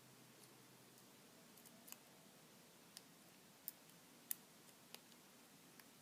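Lock pick and tension wrench working the pin tumblers of a Lockwood 232 all-brass four-pin padlock: a handful of faint, sharp metallic clicks at irregular intervals, the loudest about four seconds in.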